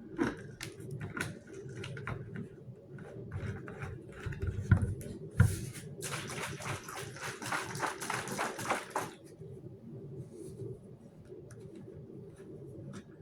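Plastic containers and bottles being handled while plant food is mixed into water: scattered clicks and two sharp knocks, then a steady rush of noise lasting about three seconds, followed by a few small clicks.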